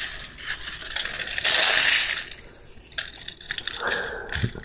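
Dehydrated kale and broccoli leaves crackling and crunching as they are gathered and crushed by hand into flakes, loudest in a burst of about half a second, a second and a half in.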